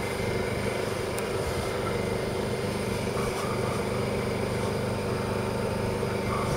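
Portable generator engine running at a steady speed, a constant low drone with no change in pitch.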